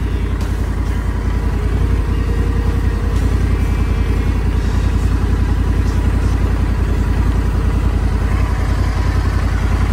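Honda Africa Twin's parallel-twin engine idling steadily with an even, rapid low pulse.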